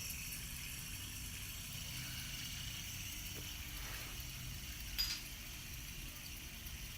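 Faint, steady background hiss and low hum, with a single light click about five seconds in.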